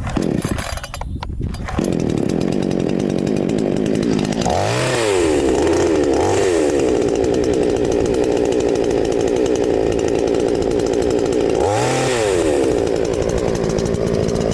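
Cheap gas-powered two-stroke chainsaw running: uneven for the first two seconds, then a steady high engine note that dips and recovers several times as the speed changes.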